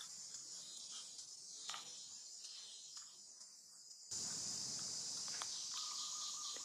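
A steady, high-pitched chorus of insects, jumping abruptly louder about four seconds in, with a few faint clicks.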